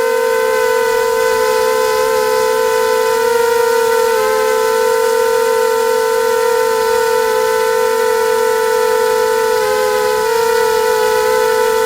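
A loud, steady whistle-like tone held without a break, shifting slightly in pitch a couple of times.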